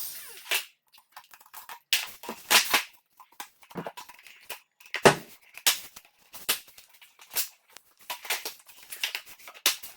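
Vinyl being cut by hand: a run of short, sharp cutting sounds, irregularly spaced, about one or two a second.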